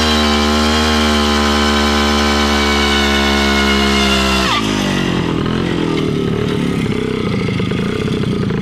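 WSK 125's single-cylinder two-stroke engine held at high revs with a steady, buzzing pitch. About four and a half seconds in, the revs drop sharply and the engine runs on lower and rougher.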